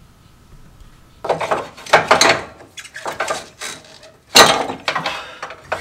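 Stock front coil spring of a Jeep Wrangler JL being worked out of its mount by hand, clanking and scraping against the suspension. The clatter starts about a second in and comes as a run of knocks, with the loudest a little past the four-second mark.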